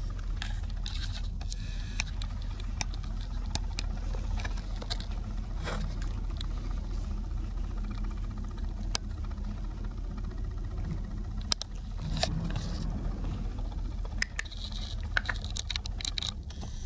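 A steady low hum with scattered light clicks and rustles as a toy poodle puppy moves about on soft fabric bedding.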